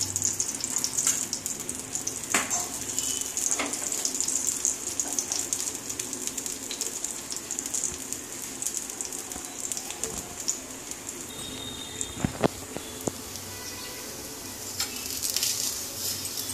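Dosa batter and freshly drizzled oil sizzling on a hot nonstick tawa (flat griddle pan): the sizzle is strongest at first, eases off past the middle and rises again near the end as a metal spatula works under the edge. A few light clicks of metal utensils against the pan.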